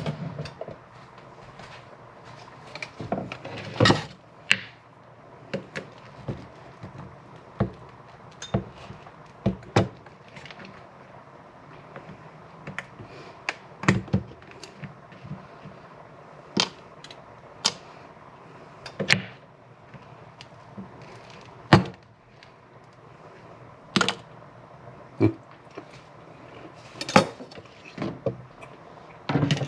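Scattered sharp knocks and clicks, about one every second or two, of kitchen things being handled and set down on a counter while a hard gumball is cut in half.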